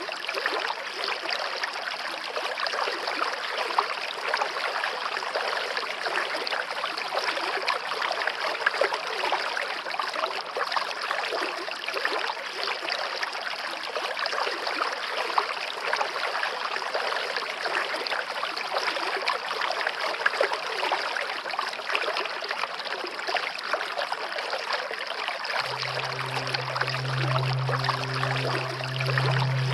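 Stream water running steadily. About 26 s in, low sustained music notes come in over the water.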